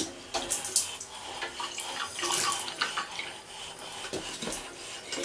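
Water from a bathtub faucet as its handle is opened, with irregular splashes and clicks rather than a steady stream. The flow is weak: not much water is getting through the line.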